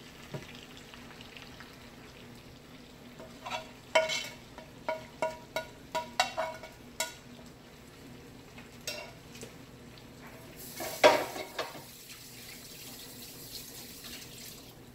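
Metal spatula scraping and tapping against a skillet with short ringing clinks as butter sauce is scraped out over fish, which sizzles softly in a pan on low heat. A louder clatter of cookware comes about eleven seconds in.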